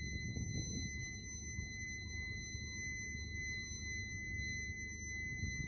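Quarry blast warning siren sounding one steady, high-pitched held tone, the alert given before a blast is fired. A low rumbling noise runs underneath.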